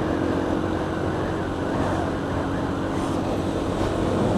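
Supermoto motorcycle engine running at a steady cruise, with a constant hum under heavy wind rush on a helmet-mounted microphone.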